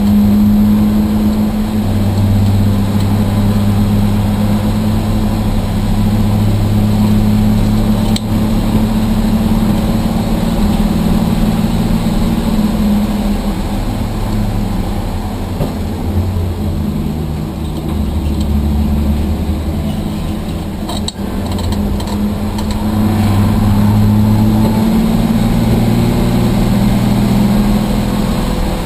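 Rambler race car's engine running hard at track speed, heard from inside the stripped cabin. Its pitch and loudness dip for a few seconds past the middle, then rise again as it pulls hard. A couple of sharp clicks cut through, one about eight seconds in and one past the middle.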